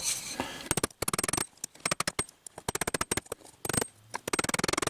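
Rapid clusters of short, sharp metallic taps in about five bursts: a hammer striking the heated steel pliers to straighten the jaws.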